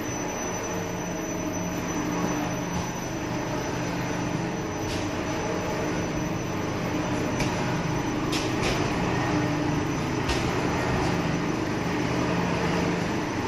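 A sawdust continuous carbonization furnace running: a steady machinery drone with low hum tones and a few light ticks.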